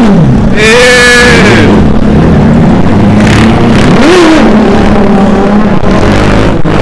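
A car engine running loudly close by, revving up and down a couple of times as vehicles pull through.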